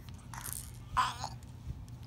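A baby's breathy mouth sounds, with one short, falling vocal sound about a second in, between stretches of babbling.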